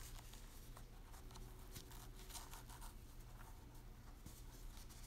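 Very faint rustling and soft scratching as hands handle pieces of tulle netting and an elastic waistband, over a low steady hum.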